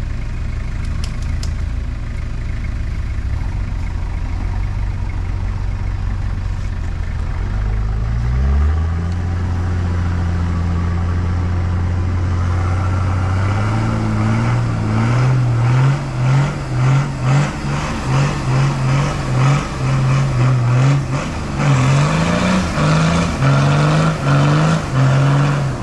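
Diesel 4WD engine running steadily, then revved up about eight seconds in and held. From about halfway it is revved in quick repeated throttle blips, a little more than one a second, as the vehicle tries to drive out of soft bog mud.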